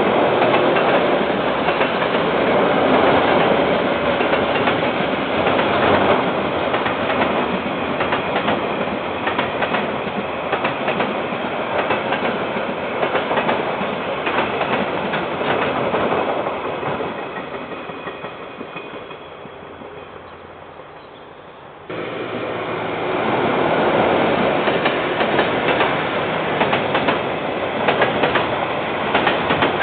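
Freight train of container wagons rolling past, its wheels clattering steadily over the rails, heard through a security camera's microphone. The noise fades away, then about two-thirds through it cuts abruptly to a second container train passing at full loudness.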